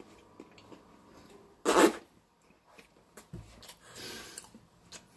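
A man gives one sharp, loud cough-like gag in disgust about two seconds in, followed by a low bump and a breathy exhale.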